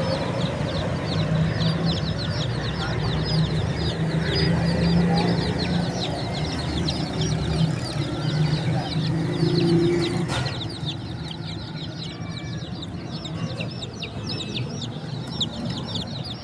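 Baby chicks peeping continuously, many short high downward-sliding chirps overlapping. A low hum underneath drops away after a single knock about ten seconds in.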